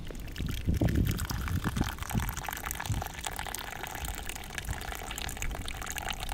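Tea being poured steadily into a cup, with a few low handling knocks in the first two seconds.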